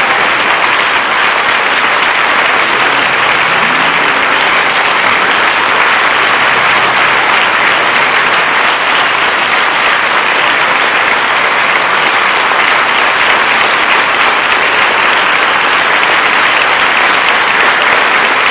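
Large audience applauding, a dense, steady clapping that holds at the same level without fading.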